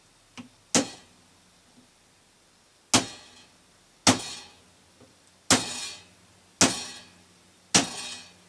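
Repeated hammer-like blows: six sharp strikes about a second apart, each with a short ringing tail, knocking at a stuck part in the jukebox mechanism to free it.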